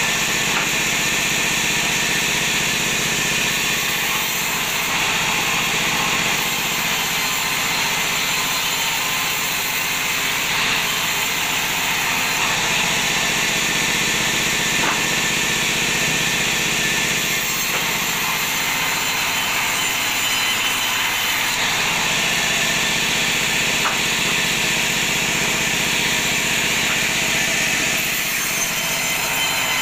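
Belt-driven bandsaw running steadily while its blade rips teak offcuts lengthwise into boards.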